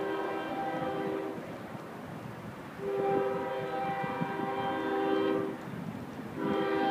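Air horn of an approaching Union Pacific freight locomotive, sounding for a grade crossing. It plays a chord of several steady pitches in blasts: one ends about a second in, a long blast runs from about three to five and a half seconds, and another starts near the end.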